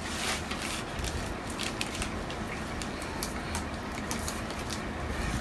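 Faint handling noise of a shipping parcel: scattered light clicks and rustles over a low background hum.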